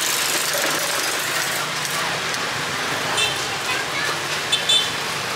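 Steady street-market background noise of traffic and distant chatter, with a few short metallic clicks about three seconds in and twice more near the end.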